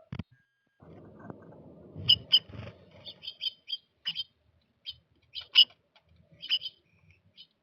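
Small birds at a feeder: short, sharp chips and ticks, irregularly spaced, a dozen or so, with a low rumbling noise from about one to three seconds in.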